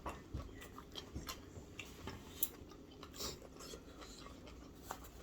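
A person chewing food close to the microphone: soft, irregular mouth clicks and smacks, with one sharper click about two and a half seconds in.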